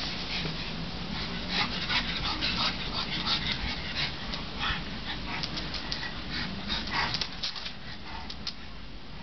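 A pug and a bullmastiff at play, making dog sounds: a quick scatter of short sharp noises that thins out and gets quieter near the end.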